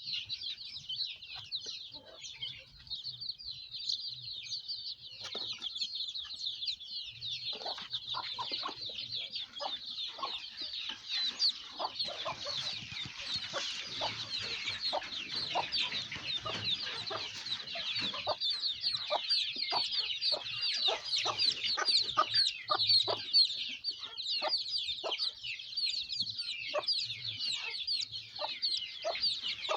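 A brood of baby chicks peeping continuously, many high cheeps overlapping. From about a quarter of the way in, frequent short light taps or knocks join the peeping.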